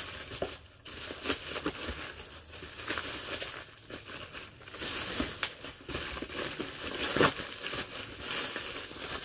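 Plastic bag crinkling in the hands as an item is stuffed back into it, with irregular crackles throughout.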